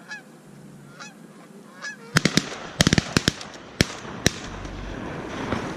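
Geese honking, a few short calls in the first two seconds. Then, from about two seconds in, a quick run of about nine sharp cracks.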